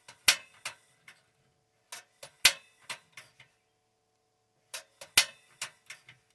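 Camp stove's spark igniter clicking in three quick rounds of several clicks each, with the burner failing to light: the igniter sparks but the gas does not catch.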